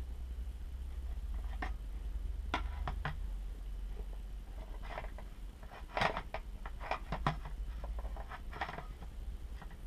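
Light, irregular clicks and clinks of hand tools and small metal shock parts being handled on a workbench, busiest in the second half, over a low steady hum.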